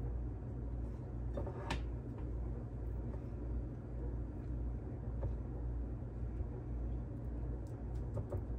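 Hands breading raw chicken tenders in a dish of crumbs: faint rustling, with a few light taps on the dish about one and a half seconds in and again near the end, over a steady low hum.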